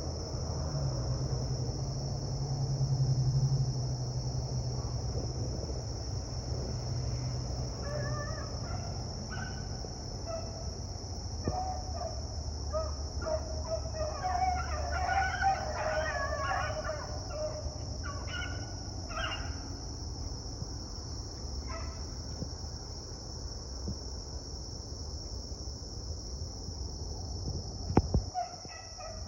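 Beagles giving tongue on a rabbit track, their scattered bays coming thickest in the middle and again near the end, over a steady high hiss.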